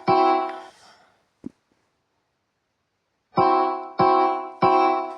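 JBL Charge 6 Bluetooth speaker sounding its alert: beeps in groups of three, each fading out. One beep closes a group right at the start, then after a pause of about two and a half seconds three more follow about half a second apart.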